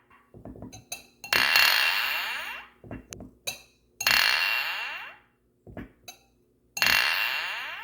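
Glasses clinking: three clear ringing clinks, each ringing out for a second or more, with lighter short taps and clicks between them.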